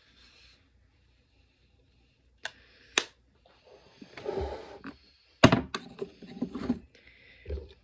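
Plastic makeup compacts being handled on a table: two sharp clicks, then a louder knock followed by a cluster of smaller knocks and rattles as a compact is set down and another picked up.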